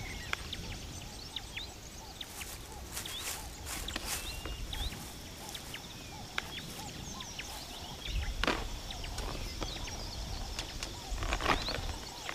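Outdoor bush ambience with many short bird chirps, and a few sharp clicks and knocks, the two loudest about eight and a half and eleven and a half seconds in.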